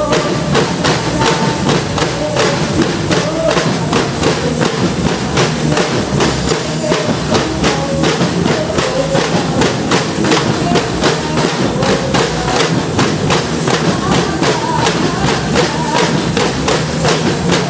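Percussion band drumming a steady march beat, about four strokes a second, with no break.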